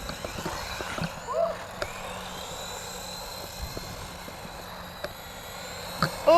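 Electric motors of two S912 remote-control monster trucks whining as they drive, rising and falling in pitch with the throttle, with a few light clicks and knocks.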